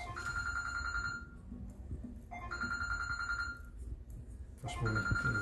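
Telephone ringtone: a short lower note, then a steady high tone held about a second, repeating three times about every two and a half seconds.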